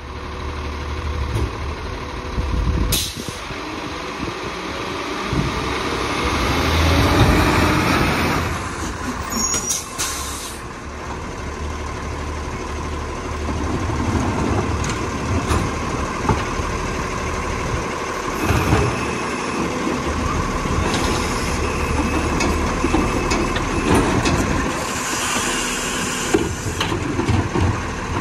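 Autocar ACX garbage truck's engine running and revving up, its pitch climbing over a few seconds, with short hisses of air brakes. Near the end there is clattering over the engine.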